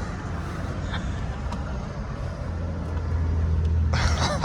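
Steady low hum of a vehicle engine running, growing slightly louder about halfway through.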